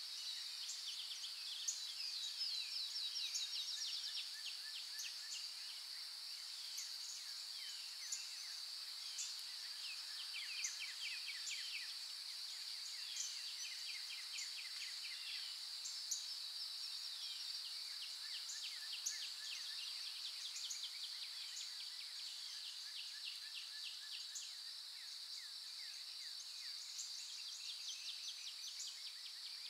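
Outdoor ambience: a steady high insect drone with many short, quick bird chirps and trills over it.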